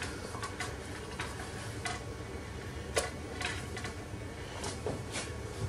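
Stainless-steel stockpot of chicken and vegetable soup simmering on the hob: faint, irregular soft ticks and pops over a low steady hum.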